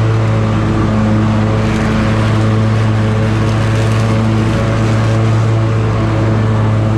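Scag Tiger Cat zero-turn mower with a 61-inch deck running steadily at mowing speed, its engine giving an even low drone with the blades engaged, cutting grass.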